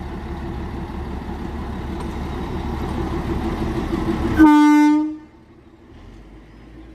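Narrow-gauge diesel locomotive running as the train pulls out, growing louder as it comes level, then one short horn blast about four and a half seconds in, after which the sound drops away sharply.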